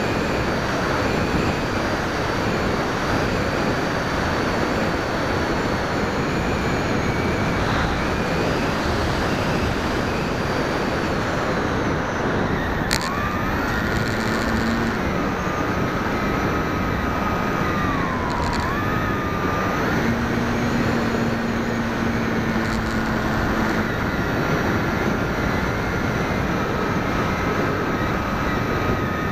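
Wind rushing over the onboard camera of an FPV model aircraft in flight, with the steady whine of its electric motor. About halfway through there is a click, and the whine shifts in pitch, dipping briefly before settling again.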